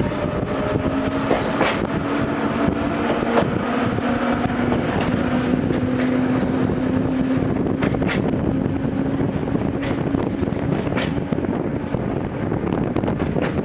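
Gakunan Railway 7000 series electric train running, heard from inside the car: a steady rumble of wheels on the track with a motor hum that rises slightly in pitch and fades out about nine seconds in, and a few sharp clicks.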